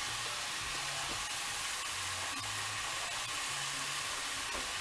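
Ground beef sizzling steadily as it browns in a skillet, a constant hiss with faint crackles.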